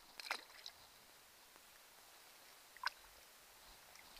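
A small white perch dropped back into the lake: a brief light splash and patter of water about half a second in, then a single sharp tick near three seconds, over a faint steady hiss.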